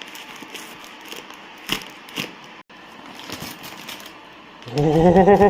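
Packing paper crinkling and rustling as it is unwrapped, with a couple of sharper crackles; a man's voice comes in near the end.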